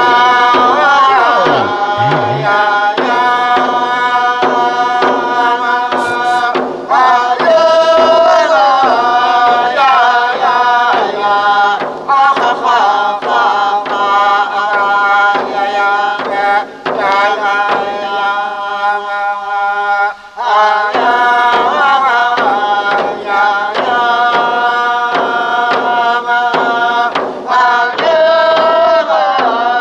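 Instrumental music with a pitched melody that slides between notes, over rhythmic hand-drum percussion; it briefly drops out about twenty seconds in.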